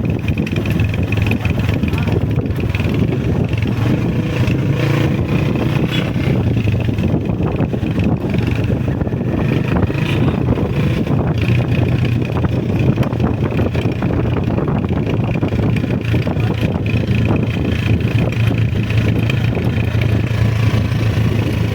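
Honda CG125 motorcycle's single-cylinder four-stroke engine running steadily under way.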